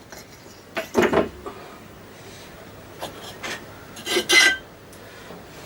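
Freshly cut metal pieces being handled: two short metal-on-metal scrapes and clinks, one about a second in and one about four seconds in.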